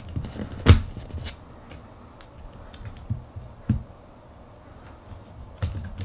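Light clicks and taps of fingers handling the motherboard and cables inside an opened Acer Aspire S3 ultrabook. There is a sharper click about three-quarters of a second in, another near four seconds, and a few more near the end.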